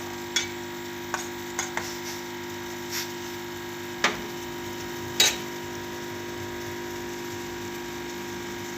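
A few light clinks and knocks of a utensil against the pot of simmering kahwa, the loudest two about four and five seconds in, over a steady hum from the stove.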